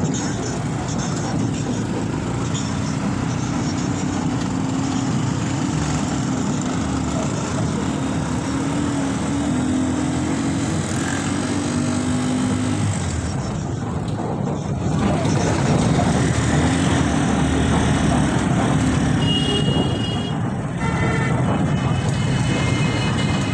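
Motor vehicle engine running steadily while driving over a rough street, with road and traffic noise. It grows louder about halfway through, and a few short high tones sound near the end.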